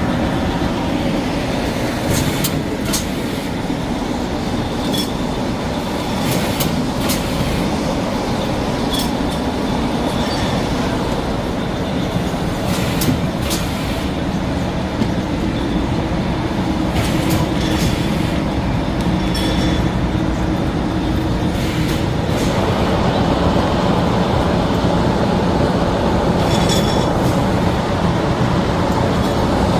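A6345S automatic shrink-wrap packaging machine running: a steady mechanical hum with sharp clacks every second or two as it cycles.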